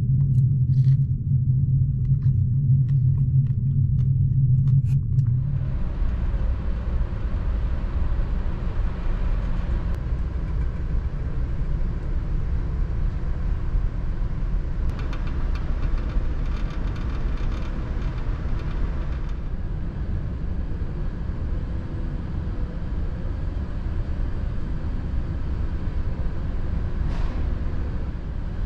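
Steady low rumble and hum of the large car ferry Ishikari's engines and machinery, heard inside the ship. For the first five seconds a deeper steady drone dominates, then the rumble turns broader and rougher.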